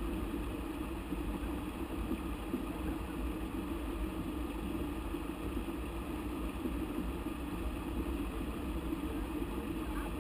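Steady low rumbling rush of mountain river water, even and unbroken.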